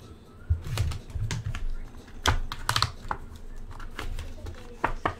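Hands opening a small sealed cardboard card box: irregular clicks, taps and light scrapes as the seal is broken and the box is worked open, with a few soft thumps.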